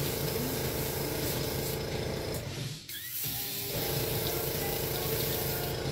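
Airbrush spraying a thin line of paint: a steady hiss that breaks off briefly about halfway through and resumes, with a steady hum under it.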